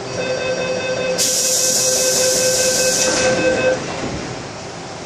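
MTR M-Train door-closing warning tone, a steady chime of several pitches lasting about three and a half seconds as the train doors shut. A loud hiss joins it from about a second in and stops just before the tone ends.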